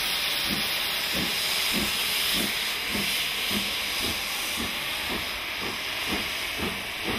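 LMS Black Five steam locomotive working under steam: a steady hiss with a regular exhaust beat about twice a second that quickens slightly.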